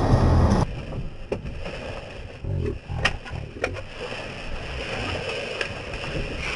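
Car cabin noise from the running engine stops abruptly about half a second in, leaving a quieter cabin with a few sharp clicks and rustles.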